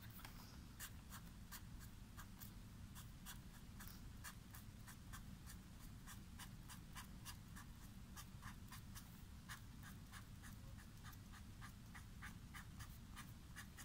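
Faint scratching of a black fine-tip marker pen on paper as short lines are drawn in quick strokes, several a second.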